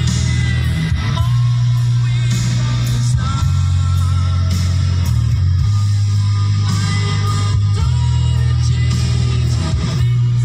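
Rock music with guitar over a steady bass line whose note changes every second or two.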